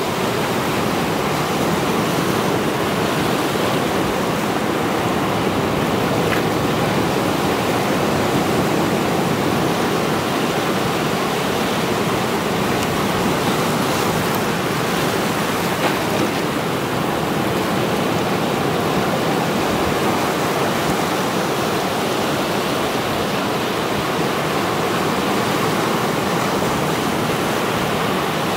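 Sea surf: waves breaking and washing over a rocky shore, a steady unbroken rush of water with no distinct single crashes.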